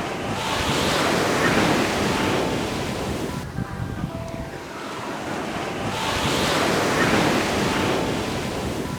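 Ocean surf washing onto a beach: two waves in turn swell into a loud rush and then fade.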